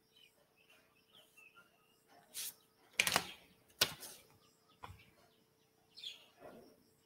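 Faint chirping, with a few brief sharp noises about three, four and five seconds in.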